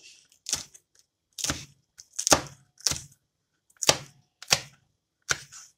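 Kitchen knife chopping green chillies on a plastic cutting board: about eight separate sharp strikes at an uneven, unhurried pace.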